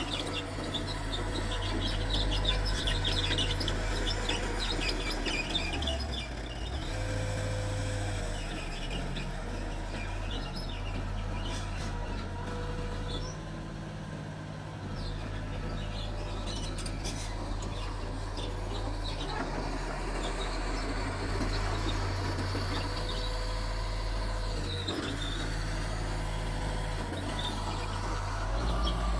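Mitsubishi bulldozer's diesel engine running under changing load, the low rumble swelling and easing several times, with scattered high squeaks and chirps over it.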